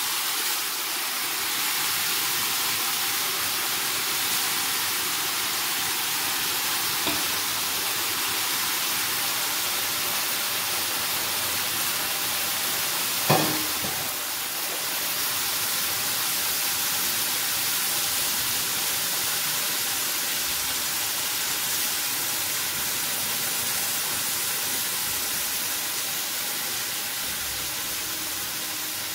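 Steady hiss and sizzle of spinach wilting and steaming in a hot stainless steel pot on top of sautéed onions and leek. A single sharp knock about 13 seconds in.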